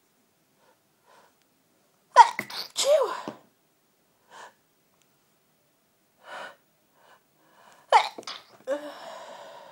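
A person sneezing in a sneezing fit: a loud sneeze about two seconds in and another about eight seconds in, with short breaths between them and a long breathy sound after the second.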